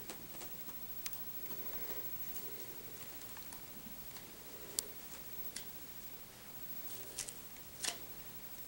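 Yorkshire terrier puppies playing on carpet and a rug: scattered light clicks and taps of small paws and claws, and of toys being mouthed, with a couple of sharper clicks about five seconds in and near the end.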